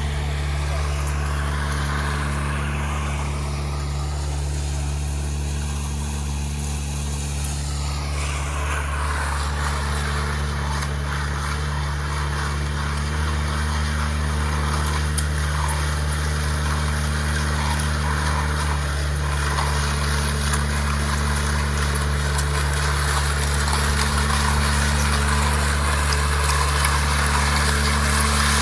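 Ride-on power trowel's engine running at a steady speed while its blades work the concrete slab.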